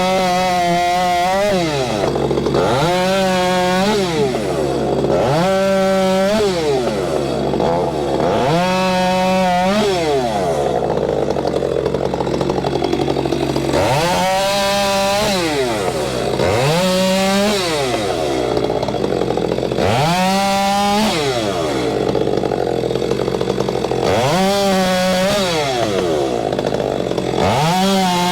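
Stihl MS462C two-stroke chainsaw with an 18-inch bar bucking walnut logs: the engine revs up to full throttle for each cut and drops back between cuts, about nine times, with a longer spell at idle midway.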